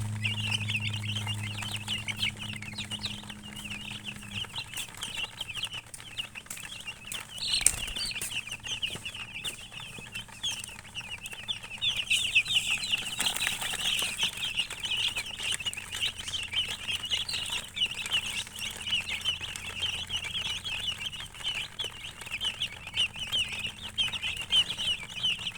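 Chicks peeping, many short high calls overlapping nonstop. A low hum fades out about four seconds in, and there is a single knock a little past seven seconds.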